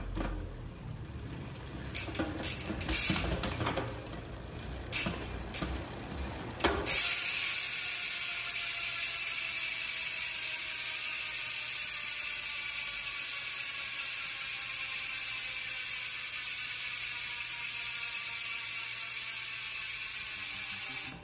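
Crimson Claw 3s six-pawl rear bicycle hub freewheeling: short bursts of pawl clicking at first, then, about seven seconds in, a loud continuous ratcheting buzz as the wheel spins free, its pitch slowly falling as the wheel slows.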